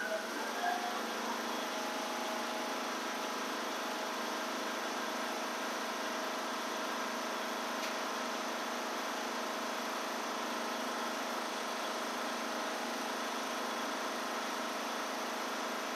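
Briggs & Stratton 21 hp engine of a Craftsman riding mower running steadily at wide-open throttle, governed at about 3150 RPM. The owner thinks that speed is too slow, and the engine sounds slow to him.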